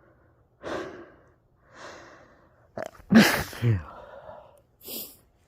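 A person's sneeze during a sneezing fit, which they put down to the cold air or allergies: two breathy gasps in, then a loud voiced sneeze about three seconds in that falls in pitch, followed by a short hissing breath near the end.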